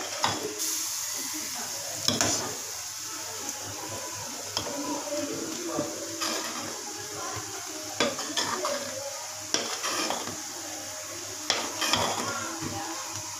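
A steel ladle stirring thick kadhi in a steel pot, knocking and scraping against the pot's side every second or two, over a steady hiss.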